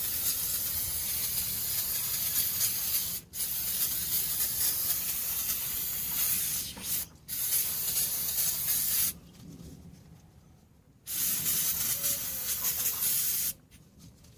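Aerosol can of brake cleaner spraying in long hissing bursts. There are short breaks about three and seven seconds in, and a pause of about two seconds past the middle.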